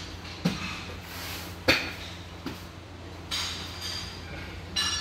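Porcelain crockery knocking and clinking as it is handled: a few sharp knocks, the loudest about two seconds in, and a short ringing clink near the end, over a steady low hum.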